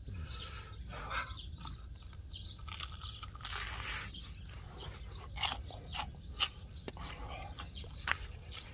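A person biting into and chewing a piece of grilled pork belly (samgyeopsal), with a few sharp crunches in the second half over a steady low rumble.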